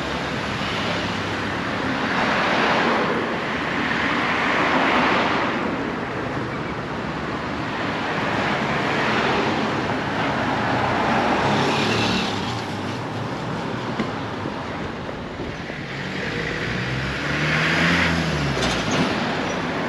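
City street traffic: cars and other vehicles passing one after another in swelling waves of engine and tyre noise. Near the end one vehicle's engine rises and then falls in pitch as it goes by.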